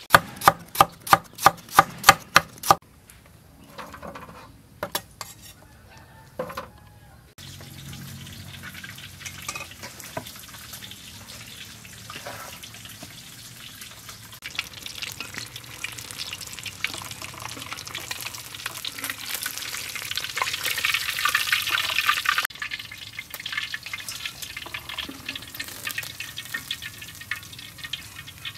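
A metal spoon clinks rapidly against a small glass bowl of chili sauce, about four taps a second for a few seconds. This is followed by a steady hiss of food frying in hot oil that grows louder and then cuts off suddenly.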